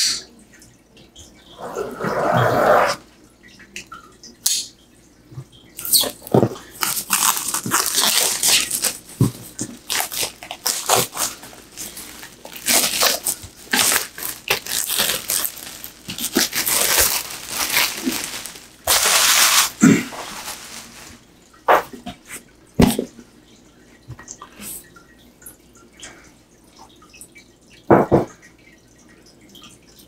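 A knife slitting plastic shrink wrap on a cardboard box, then the wrap crinkling in loud, irregular bursts for about fifteen seconds as it is peeled off. After that come a few scattered knocks and taps as the box is handled.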